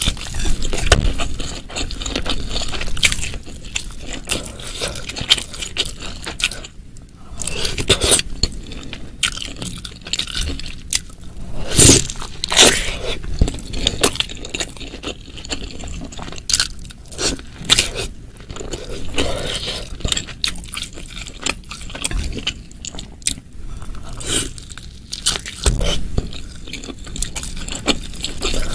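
Close-miked eating sounds: wet chewing and biting into a jumbo meatball and mushrooms coated in thick spicy sauce, with many short smacks and clicks. Now and then a spoon or chopsticks scrape the glass bowl.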